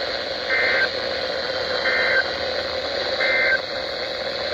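Emergency Alert System SAME data bursts: three identical short warbling two-tone bursts about a second apart, over steady radio hiss. Each burst is very short, which is typical of the end-of-message code that closes an alert.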